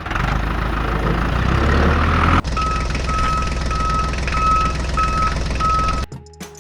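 A heavy vehicle engine running with a loud rumble. About two and a half seconds in, a reversing alarm starts: six evenly spaced high beeps over the engine noise. The sound cuts off abruptly near the end.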